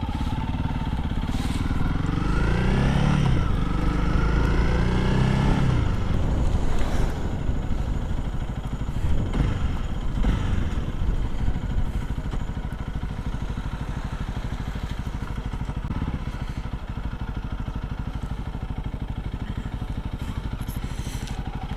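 Single-cylinder motorcycle engine under way: it rises in pitch twice in the first several seconds as the bike accelerates through the gears, then settles into steadier, slightly quieter running.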